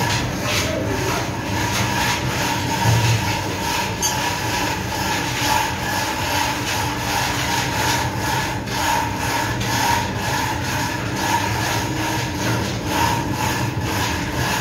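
Steady ship engine-room machinery noise: a constant drone with a wavering mid-pitched hum, with no let-up or change.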